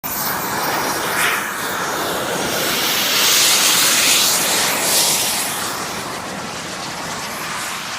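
Jet aircraft engine noise swelling to a peak about three to four seconds in, then easing off, as the jet makes its takeoff run.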